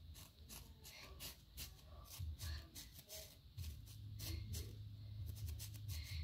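Toothbrush bristles scrubbing against a terry-cloth sock puppet: a quick, irregular run of short scratchy strokes. A low steady hum comes in about halfway through.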